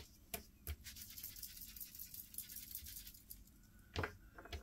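A few light taps and clicks from craft tools and paper being handled on a desk, three in the first second and two more near the end, over a faint steady hiss.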